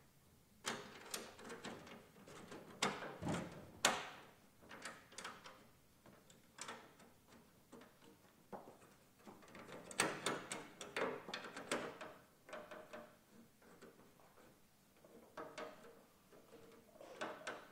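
Metal camp-kitchen parts being handled and fitted: a metal shelf panel being set into place between two metal cabinets, with irregular knocks, clicks and scrapes, the loudest a few seconds in and again about ten seconds in.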